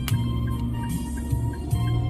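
Music with a steady beat: a low bass line under a light ticking rhythm about five times a second.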